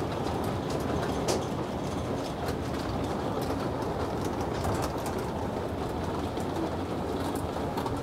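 Chain log haul hauling a chained bundle of logs up a steel ramp into a sawmill: a steady mechanical rumble with scattered clicks and clanks of chain and wood.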